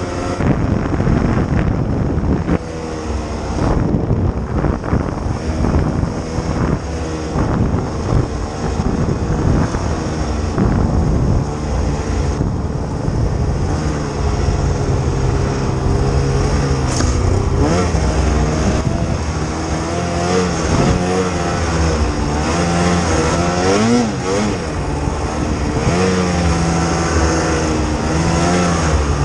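Snowmobile engine running as the sled is ridden through snow, its pitch rising and falling with the throttle, with the most frequent swings in the second half.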